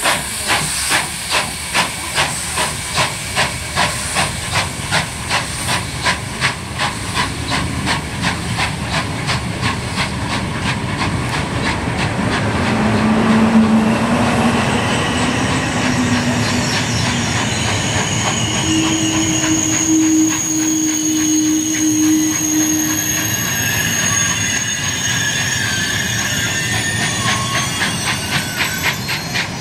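SNCF 141R Mikado steam locomotive pulling away, its exhaust chuffing in an even beat of about two to three a second with hissing steam. The chuffs fade as the coaches roll past with a steady rumble and hiss, some long steady squealing tones in the middle, and rail-joint clicks near the end.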